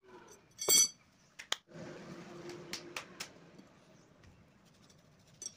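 Steel square bar being handled and set down: one loud ringing metal clink under a second in, then a few sharp clicks and a couple of seconds of scraping, with one more click near the end.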